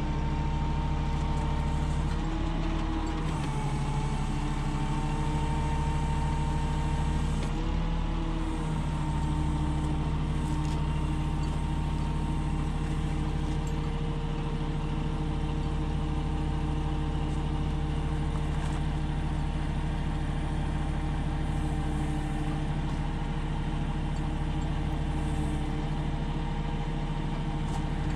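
An engine running steadily at idle, its pitch sagging briefly about three seconds in and again about eight seconds in.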